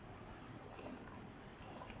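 Quiet room tone with no distinct sound.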